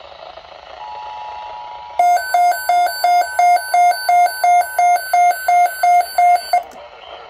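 Emergency Alert System attention signal from a radio: a steady two-note tone. About two seconds in, louder rapid pulsing beeps join it, about three a second, and they stop shortly before the end.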